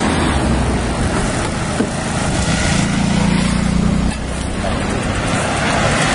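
Motor vehicle engines running close by, a steady low drone, with a humming tone that swells between about two and a half and four seconds in.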